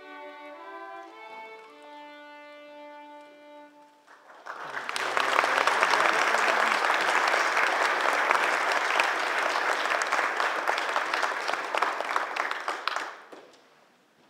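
A string orchestra with violins plays the last notes of a piece, ending on a held chord. Then the audience applauds, louder than the music, for about eight seconds before the clapping dies away near the end.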